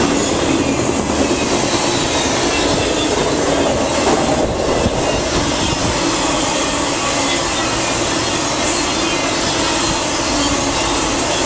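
Intermodal freight train cars, double-stack container cars and trailer-carrying flatcars, rolling past close by: steel wheels running on the rails in a loud, steady rolling noise.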